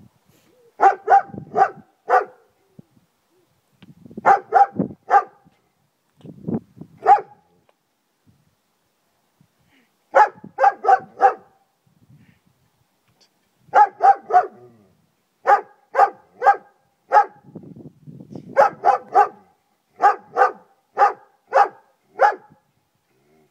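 German Shepherd barking loudly, in quick runs of three or four barks separated by short pauses.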